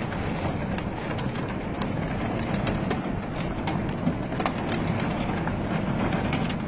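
Heavy rain and hail pelting hard surfaces: a steady rushing hiss dotted with many sharp ticks of impacts.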